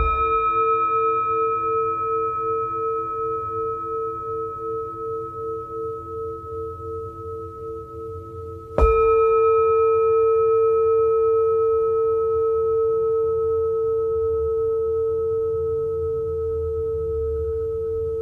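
Large Himalayan Jambati singing bowl struck twice, about nine seconds apart. Each strike rings out as a long, deep, slowly fading tone with several higher overtones. After the first strike the low tone wobbles in a slow, even pulse.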